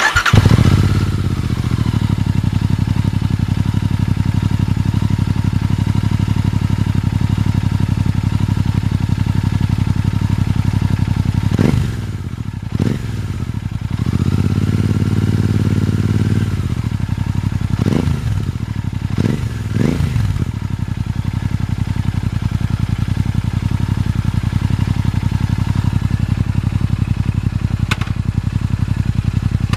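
Royal Enfield Interceptor 650's parallel-twin engine through Powerage aftermarket mufflers, starting from cold and settling into a steady cold idle. About halfway through come a few quick throttle blips and one longer rev of a couple of seconds, each dropping back to idle. A sharp click near the end.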